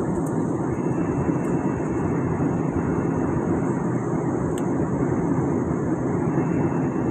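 Steady cabin noise of an airliner in flight on descent: jet engines and rushing air heard from inside the cabin.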